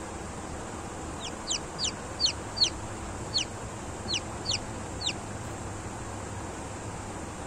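Newly hatched Kadaknath chick peeping: about ten short, high peeps that each slide downward, starting about a second in and stopping about five seconds in, over a steady hiss.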